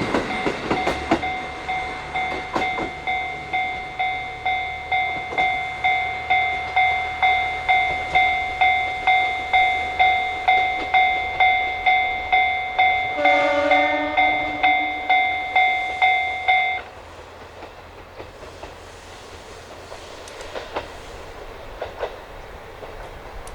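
Level-crossing warning bell ringing about twice a second, cutting off suddenly about two-thirds of the way through. A diesel train's wheels clatter over rail joints at the start, and a short train-horn blast sounds just before the bell stops.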